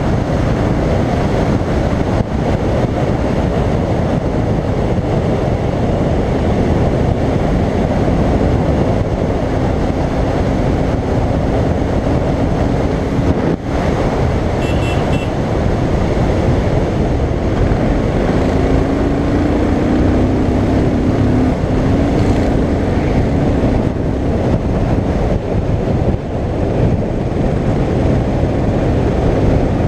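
Royal Enfield Continental GT 535's single-cylinder engine running at road speed under heavy wind rush on the camera microphone. The engine note holds steady, rises briefly about nineteen seconds in and eases off a few seconds later.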